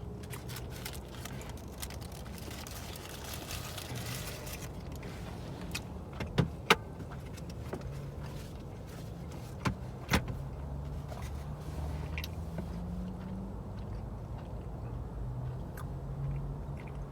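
A low steady hum inside a car's cabin, with rustling for a few seconds and then two pairs of sharp clicks or knocks, while takeout food is unwrapped and eaten.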